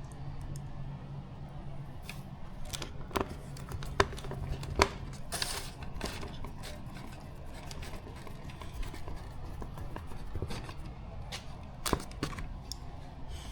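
Scattered clicks, taps and knocks of small parts, screws and tools being handled during model kit assembly, with two sharper knocks about four and five seconds in.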